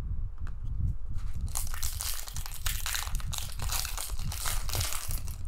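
Foil wrapper of a 2020 Panini Prizm football card pack crinkling and tearing as it is ripped open by hand, starting about a second in.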